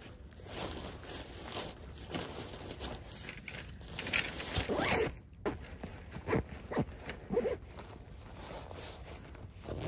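A zipper being pulled in several short runs, with rustling and scraping of fabric, as camping gear is packed away.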